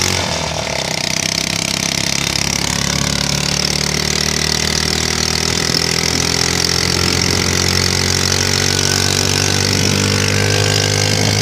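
A vehicle's engine running steadily, a low even drone with no break.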